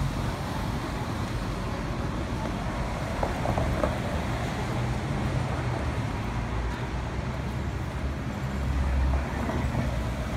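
Street traffic: cars driving past at a street corner, a steady road rumble that swells near the end as one vehicle passes close.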